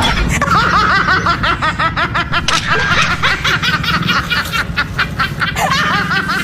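Loud, continuous snickering laughter: quick, high-pitched laughs repeated several times a second.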